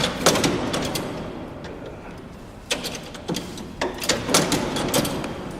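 Alcatraz's barred steel sliding cell doors rolling along their tracks, with a series of sharp metallic clanks as the doors and their locking gear move.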